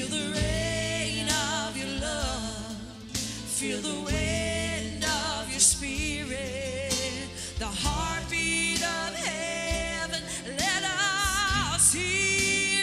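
Live gospel worship music: a voice sings long, wavering notes over a band with held bass notes and short percussive strokes.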